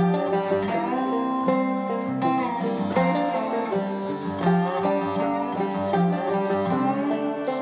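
Background instrumental music: a brisk plucked-string tune with quickly changing notes.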